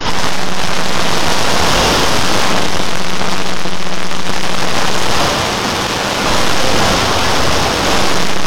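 Hundreds of video soundtracks playing at once, blended into one loud, steady rushing roar like a jet engine or a waterfall, with a faint low hum underneath. The roar dips briefly about five to six seconds in.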